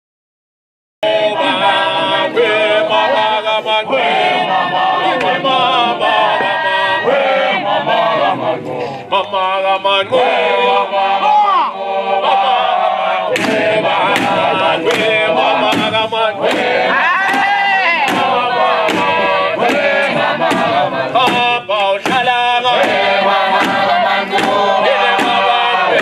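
A group of voices chanting and singing a traditional Shangaan dance song, starting about a second in after a moment of silence. Sharp rhythmic beats join in from about halfway.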